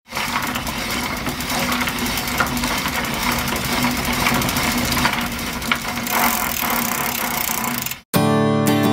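Clockwork-gear machinery sound effect: dense mechanical clattering and whirring over a steady hum, which cuts off suddenly about eight seconds in. A strummed acoustic guitar chord rings out near the end.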